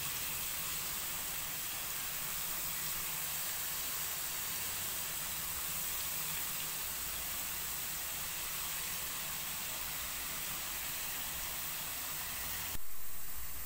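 Thin potato slices deep-frying in hot refined oil in an aluminium kadhai, with a steady sizzle of oil bubbling hard around the slices as they cook. Near the end the sound shifts abruptly and briefly grows louder.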